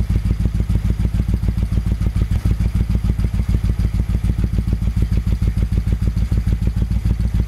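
Freshly rebuilt 1974 Moto Guzzi Eldorado 850's air-cooled transverse V-twin idling steadily through Mistral stainless slash-cut exhaust, with an even beat of about eight pulses a second.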